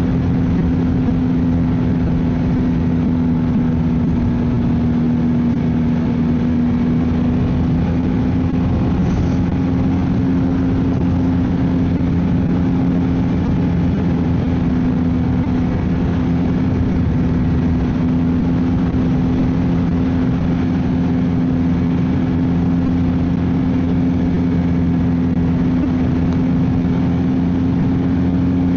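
Ski-Doo snowmobile engine running at a steady trail speed: a constant droning pitch that dips slightly about five seconds in and then holds.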